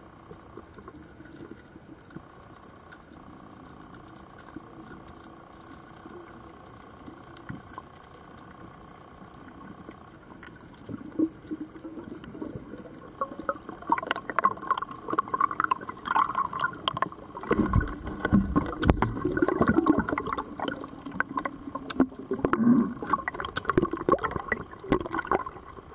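Water heard through an underwater camera's housing: a faint steady hum at first, then from about eleven seconds irregular bubbling and gurgling that grows into loud sloshing and splashing as the camera rises and breaks the surface.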